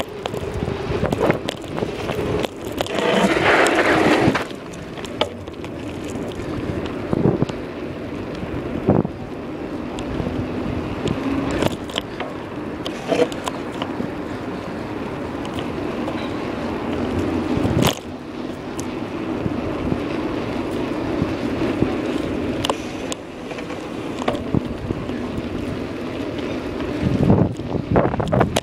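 Wind buffeting the microphone of a phone carried on a moving bicycle, over the rolling rush of the ride, with scattered sharp knocks and rattles from bumps. A louder gust of wind noise comes about three seconds in.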